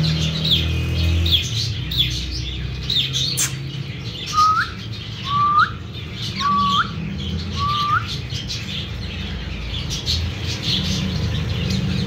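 Caged cockatiels and other small parrots chirping: rapid short high chirps throughout, with four clear rising whistles about a second apart in the middle, over a low steady hum.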